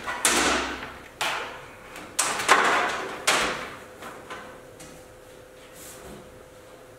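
Black plastic air-line tubing being pulled and dragged across the mill's enclosure panels: a series of sudden scraping swishes and knocks over the first few seconds, then only faint rubbing.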